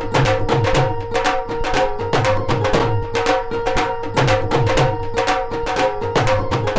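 Background music: a quick, steady drum beat over held melodic notes.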